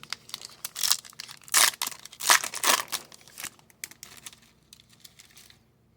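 Plastic wrapper of an Upper Deck hockey card pack being torn open and crinkled, loudest about one and a half and two and a half seconds in. The crinkling dies away about five and a half seconds in.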